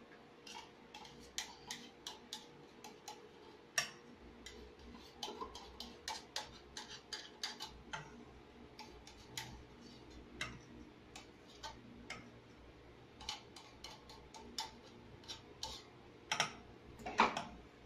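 A spoon clicking and scraping against the inside of an opened tin can as its thick contents are scraped out into a pot. The sharp, irregular clicks come a few times a second, with a louder cluster near the end.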